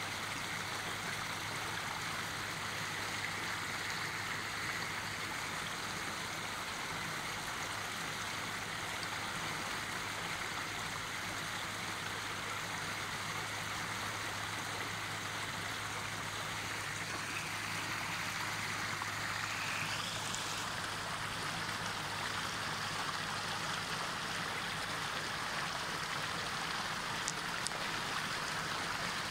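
Steady rush of water flowing through a bamboo-screen fish trap, unchanging throughout, with a faint low hum under it.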